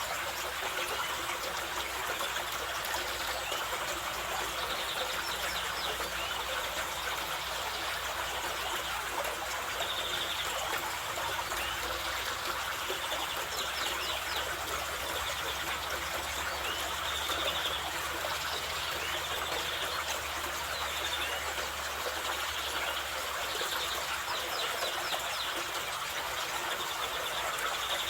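Mountain river water rushing steadily. Short high bird chirps and trills sound above it every few seconds.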